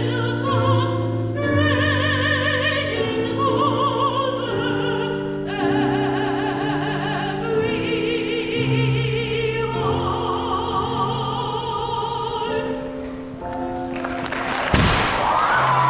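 Operatic-style singing with strong vibrato over a sustained accompaniment, then near the end a sudden loud blast from confetti cannons, followed by the crowd breaking into noise.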